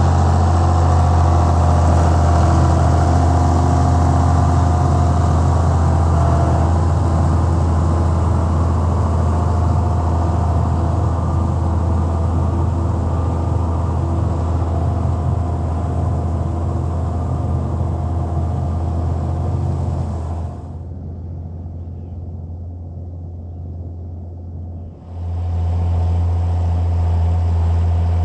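John Deere 7510 tractor's six-cylinder diesel engine running steadily with a low drone, heard from inside the cab while pulling a manure spreader. Near the end the sound drops to a quieter, duller drone for about four seconds, then the full engine sound returns.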